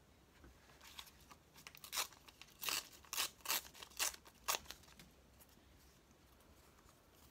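Glossy magazine paper being torn by hand in a series of short rips and rustles, clustered in the first half, then quiet handling.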